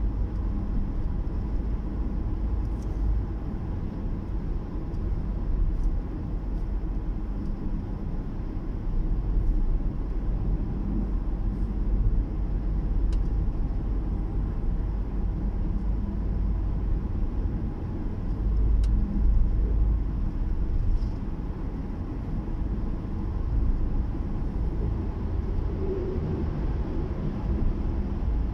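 Steady low rumble of a car driving at highway speed, heard from inside the cabin: engine and tyre noise, with a few faint ticks.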